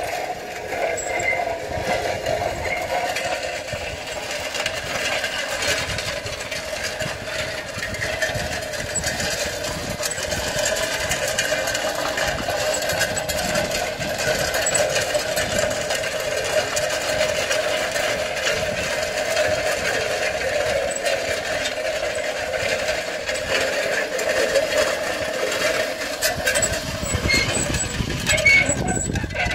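Horse-drawn disc harrow, trailing a spike-tooth drag harrow on chains, rattling and scraping steadily as its steel discs and teeth are dragged over gravel. Near the end a low rumble joins the rattle.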